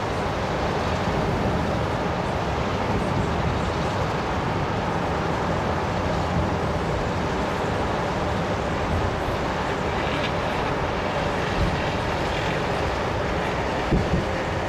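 Steady rumble of traffic on a multi-lane road below, with two dull distant thumps close together near the end, typical of fireworks bursting far off.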